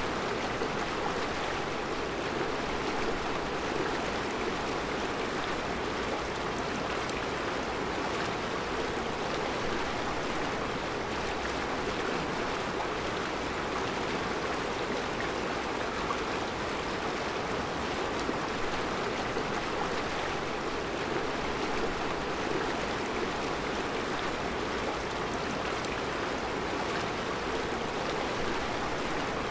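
Mountain river flowing steadily over round rocks, a continuous even rushing of water.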